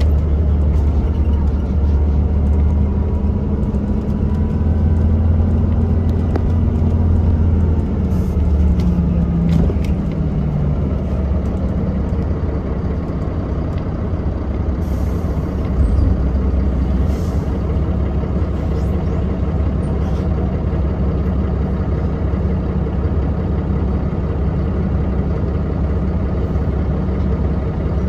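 Mercedes-Benz O405NH bus's rear-mounted engine heard from inside the cabin as the bus drives along. The engine note rises for several seconds, drops about eight to ten seconds in, then runs steadily, with a single bump about sixteen seconds in.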